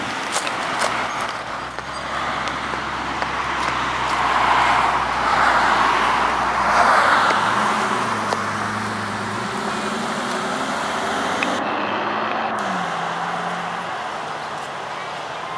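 Cars driving on a road: engine running with tyre noise, loudest as a car passes close about four to seven seconds in, while the Bentley Continental GT drives away. Its engine note rises once, later steps down, and fades near the end.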